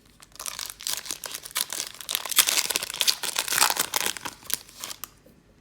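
A football card pack's wrapper being torn open and crinkled, a dense crackling that starts about half a second in and stops about five seconds in.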